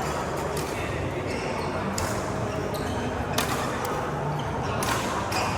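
A badminton rally: a run of sharp racket strikes on a shuttlecock, about one every second or so, over steady background noise.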